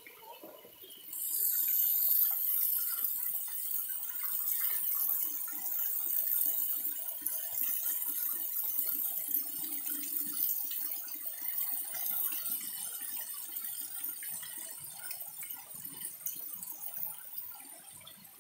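Water pouring from a row of spouts in a stone wall and splashing close by: a loud, steady rush that starts suddenly about a second in and eases off near the end.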